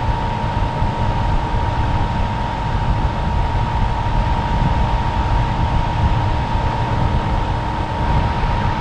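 Air conditioning unit running steadily: a continuous whir with a low hum and a constant high-pitched whine.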